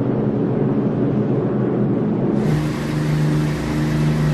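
Steady engine drone, low and humming. About two and a half seconds in it switches abruptly to a different, steadier engine hum with a clear low tone.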